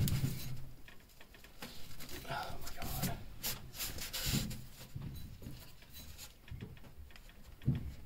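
A wrench working a threaded pressure relief valve loose from a hot-water boiler's piping: scattered metal clicks and scrapes at irregular intervals, with short low vocal sounds of effort among them.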